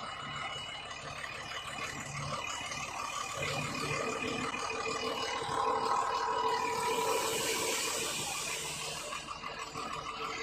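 Dump truck's engine running under load as its hydraulic hoist raises the tipper bed, a steady whine that swells about halfway through. A hiss grows near the end as the sand starts to slide out.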